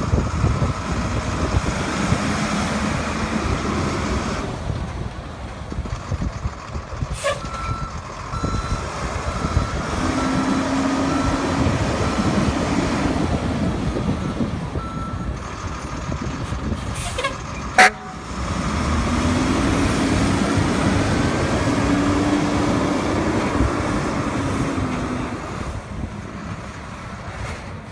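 1995 E-One fire truck running, with its reversing alarm beeping steadily about a dozen times in the middle and the engine note swelling twice. A single sharp, loud snap comes about 18 seconds in.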